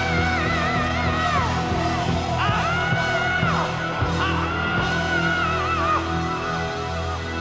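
Live rock band holding out the end of a slow song: a sustained low chord under three long, high held notes that waver with vibrato. The high notes stop about six seconds in, leaving the band's chord ringing on.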